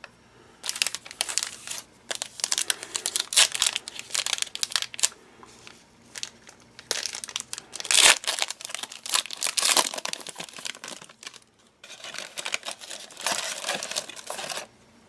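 Plastic wrapper of a 2017 Donruss Optic football card pack being torn open and crinkled by hand, in irregular crackling bursts with two short pauses.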